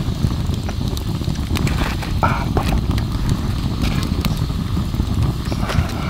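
Food deep-frying in a pan of oil over a wood campfire: scattered crackles and pops over a steady low rumble.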